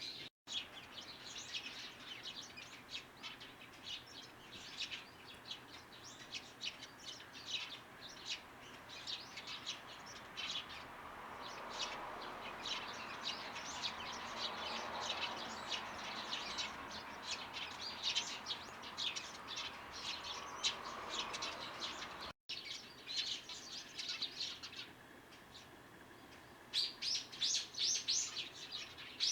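Small garden birds chirping: many short, quick calls overlapping, denser near the end. Twice the sound cuts out for an instant.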